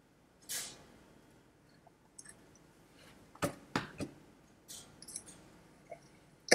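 Quiet dry-erase marker strokes on a whiteboard, followed by two sharp clicks about half a second apart and a few fainter ticks.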